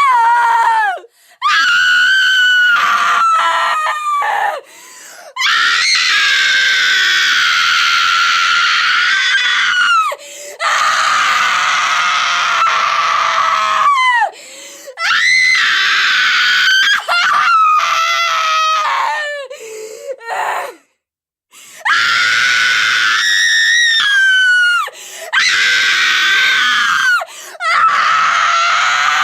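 An adult woman screaming in pain, a series of long, high-pitched screams broken by short gasps and pauses, with one full stop of about a second near two-thirds of the way through.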